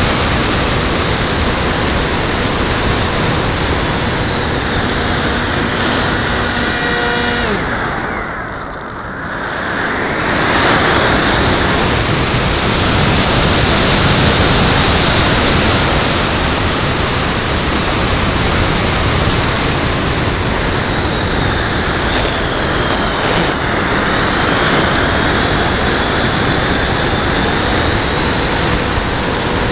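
Radio-controlled model aeroplane in flight, heard from a camera mounted on it: a steady rush of air and motor noise with a high whine that falls and rises in pitch. The sound drops away briefly about eight seconds in, then builds again.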